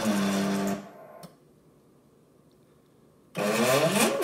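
SteppIR EHU stepper motor whining as it drives the director element through a cycle test. The whine dips in pitch and recovers, stops about a second in, and after two quiet seconds with a faint click, starts again about three seconds in, with its pitch sweeping down and back up as the motor slows, reverses and speeds up.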